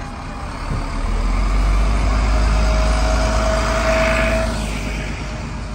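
Open-top double-decker tour bus moving past close by, its engine rumbling deep and loud, swelling about a second in and easing off near the end, with a steady whine in the middle.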